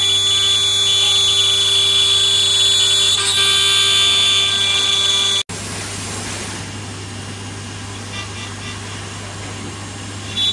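5-axis CNC router spindle running at high speed and cutting wood, a loud high-pitched whine made of several steady tones. About five and a half seconds in the sound cuts off abruptly and comes back quieter and more of a hiss, with less of the whine.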